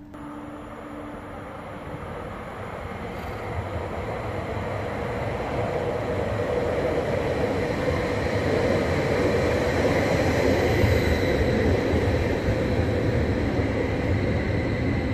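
Stadler FLIRT (Sm5) electric commuter train approaching and pulling in at an underground station platform: a rumble of wheels on rail that grows steadily louder, with a thin steady whine over it in the second half.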